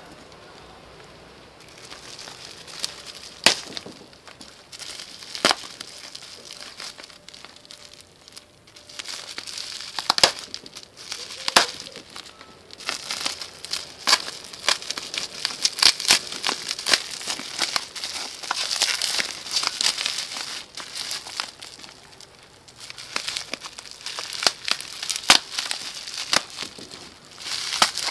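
Bubble wrap crinkling and crackling as hands squeeze and pull it off a wrapped package, in irregular sharp crackles that grow busier partway through.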